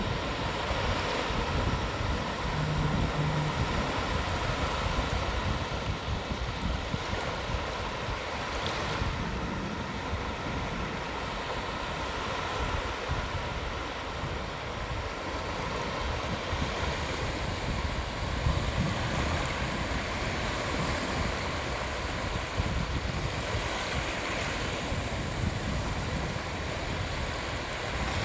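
Sea waves washing onto a beach: a steady surf wash that swells now and then, with wind buffeting the microphone.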